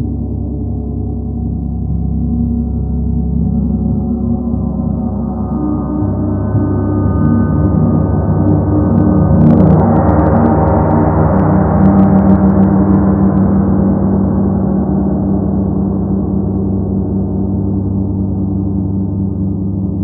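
A gong resonating in a sustained, shimmering wash of many overlapping tones. It swells louder and brighter to a peak about halfway through, with a few light strikes there, then eases back.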